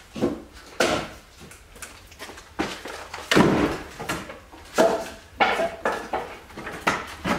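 Split firewood pieces clunking and knocking together as they are picked up from a woodpile, in an irregular series of about ten hollow knocks.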